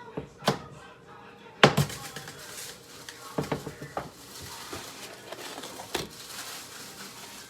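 Kitchen clatter: utensils and dishes knocking against each other in a series of sharp knocks, the loudest a little under two seconds in.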